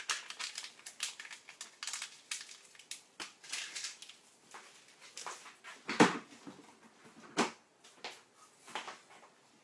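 Crinkling and rustling of a small baking-powder packet being handled and folded, with scattered clicks. Two knocks stand out, the loudest about six seconds in and another a second and a half later.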